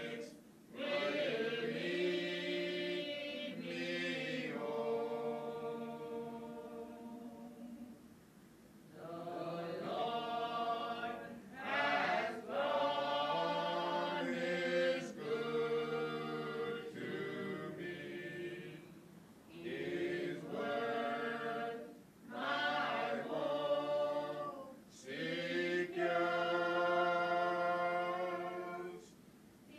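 A choir singing a slow piece without instruments, holding long notes in phrases a few seconds long with brief gaps between them.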